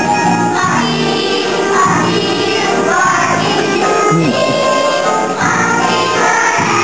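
A children's choir singing a song, with instrumental accompaniment holding steady low notes underneath.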